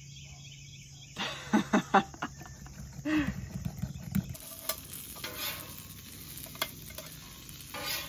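A metal spoon stirring syrup and cream cheese icing in a small glass bowl, clinking and scraping against the glass in a quick run of strokes about a second in, then lighter scrapes.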